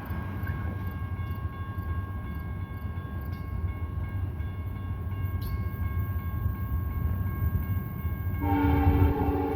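Low rumble of an approaching freight train, growing louder. About eight seconds in, the lead locomotive's Nathan K5LLA five-chime air horn starts sounding a loud chord.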